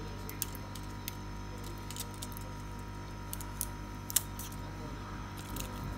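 Light, scattered clicks and crinkles of fingers picking at the plastic stiffener and flex cable on the back of a tablet display panel, the sharpest click a little past four seconds in, over a steady low electrical hum.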